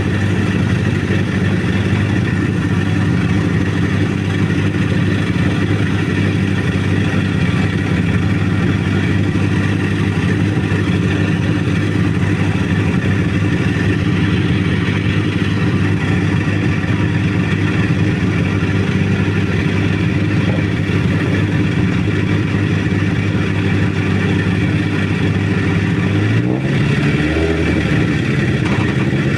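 Rally car engine idling steadily at the start line, then revving up with a rising pitch about three seconds before the end.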